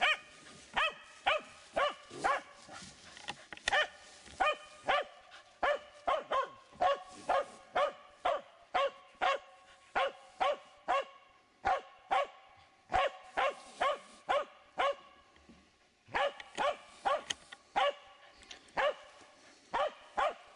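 Finnish Spitz barking at a badger it has brought to bay: a long run of sharp barks, about two a second, with a couple of short breaks.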